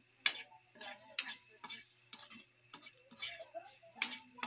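Metal spatula scraping and knocking against a steel wok while stir-frying strips of carrot and vegetables, a stroke every half second to a second, over a light sizzle.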